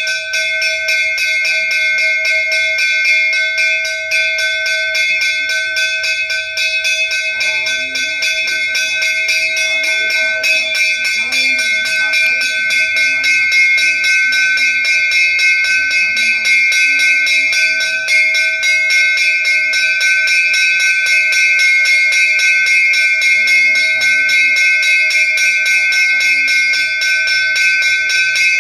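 Temple bell rung continuously in rapid, even strokes, with a steady ringing tone throughout. Faint voices come in underneath from about a quarter of the way in.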